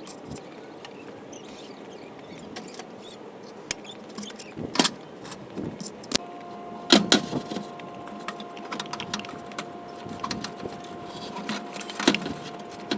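Scattered metal clanks, knocks and chain rattles as a Mopar 360 V8 is worked down into the engine bay on a hoist. From about six seconds in, a steady two-tone whine joins them.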